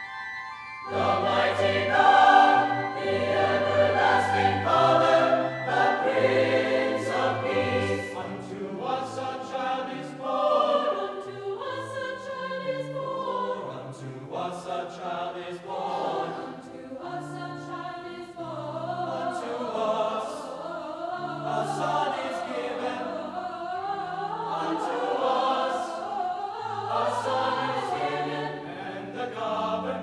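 Mixed choir of men's and women's voices singing, with low bass notes under the upper parts; after a brief pause the voices come back in about a second in.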